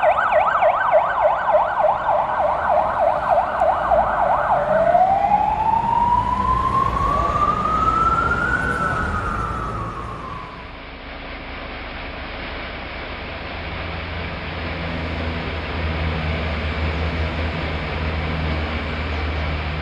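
Emergency-vehicle siren in a fast yelp, switching about five seconds in to a slow wail that rises once and falls away. It stops about ten seconds in, leaving a steady low rumble with hiss.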